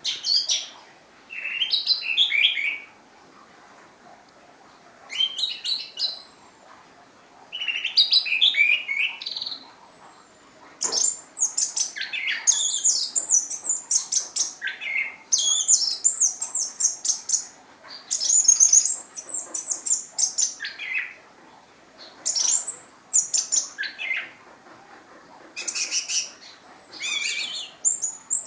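Orange-headed thrush singing: short phrases of quick chirps and whistles separated by pauses of a second or two, running together into an almost unbroken stream of phrases from about a third of the way in.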